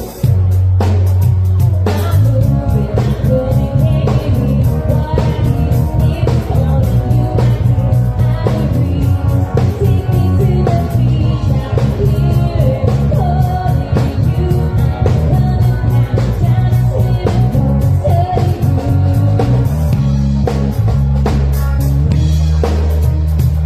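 A live band playing a pop cover with a singer, electric guitar, bass and drum kit: a steady drum beat under a prominent bass line, with sung lines over the top.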